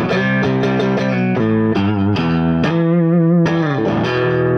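Charvel electric guitar played through an amplifier: a blues lick of quick picked notes, then a bent note shaken with vibrato about three seconds in that slides down, before another note rings on.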